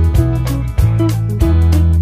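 Background music led by plucked and strummed guitar over a steady bass line.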